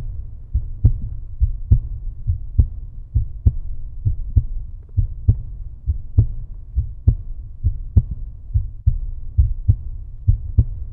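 End-card soundtrack: a deep low rumble pulsing with a heavy thump about once a second, softer beats falling between, like a slow heartbeat.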